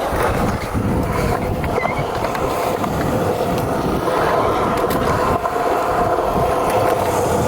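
BMX bike's drivetrain spinning in a repair stand: chain, sprockets and wheel running with a steady rolling whir and rumble.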